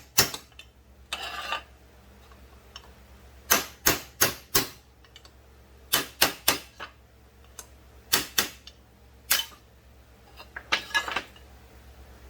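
Hammer driving a punch to knock a crank bearing out of a chainsaw crankcase half: sharp metallic blows in quick bursts of one to four strikes, with two short rattles, about a second in and near the end.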